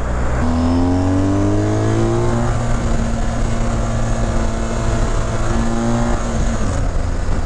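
BMW R 1250 GS Adventure's boxer-twin engine accelerating: its pitch climbs over the first couple of seconds, then holds steady at cruising speed, over road noise.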